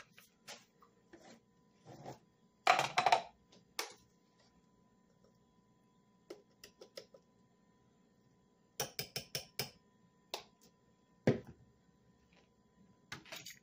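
Clicks and taps of a measuring spoon and a plastic bouillon jar being handled on a kitchen counter while powdered chicken bouillon is measured out. There is a cluster of clatter about three seconds in, then a quick run of about five light taps past the middle, then a few single knocks near the end.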